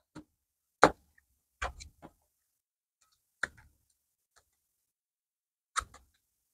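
Tarot cards being handled and set down on a table: about eight short, separate taps and clicks at irregular spacing, the loudest a little under a second in.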